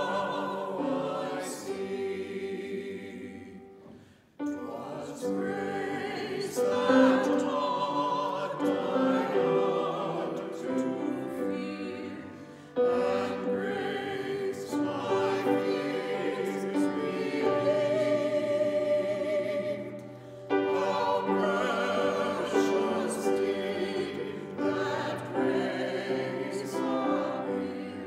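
A small mixed choir singing a hymn in parts, accompanied on a grand piano. The singing moves in long lines, with brief drops between phrases about every eight seconds.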